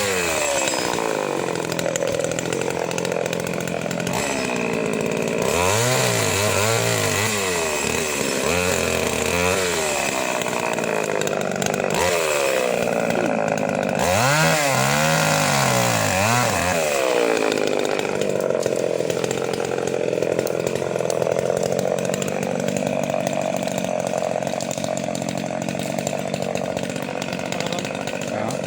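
Chainsaw engine revved up and down several times, its pitch swelling and falling, then held at a steady high speed for roughly the last ten seconds.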